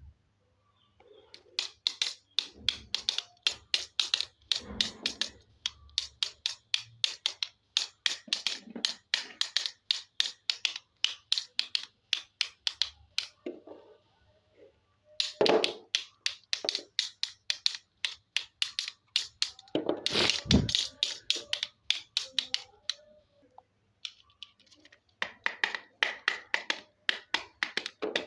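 Small plastic toy figures being handled and tapped together: a rapid run of sharp plastic clicks, several a second, broken by short pauses about halfway and about two-thirds through.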